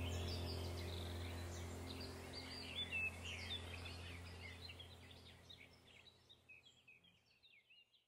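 Small birds chirping and twittering over a steady low hum, the whole sound fading out gradually to silence.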